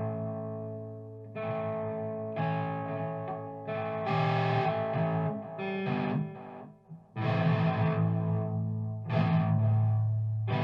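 Background music: a distorted electric guitar playing chords with effects, struck afresh every second or two.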